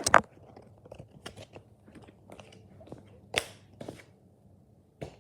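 Pokémon trading cards handled and rearranged in the hands: scattered sharp clicks and snaps of card against card, with louder snaps at the very start and about three and a half seconds in.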